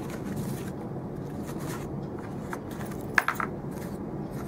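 A hand handling the barrel-bushing wrench in a foam-lined plastic pistol case, over a steady low room hum. A sharp click comes about three seconds in, followed by a couple of lighter taps.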